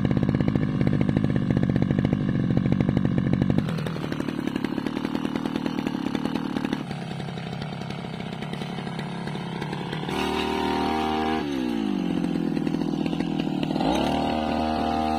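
Backpack petrol brush cutter fitted with a metal blade, running at high speed just after being started. Its engine note shifts as the blade cuts into dense grass and weeds, dropping in pitch about ten seconds in and climbing again near the end.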